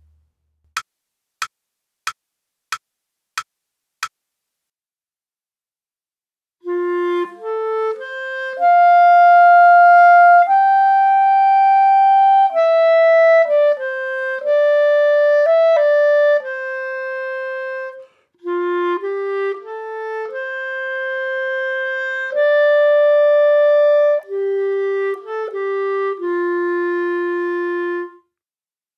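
Six evenly spaced clicks of a beat pulse counting in, then a solo melody line on one instrument in two phrases with a short break between them: a melodic-dictation extract from an aural exam.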